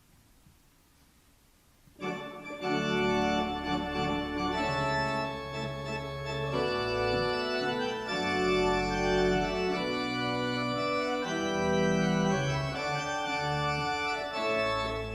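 Near silence, then about two seconds in organ music starts and plays on in held chords with moving notes.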